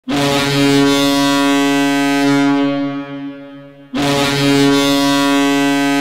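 Toronto Marlies hockey goal horn sounding two long, steady blasts. The first dies away over a second or so, and the second begins about four seconds in.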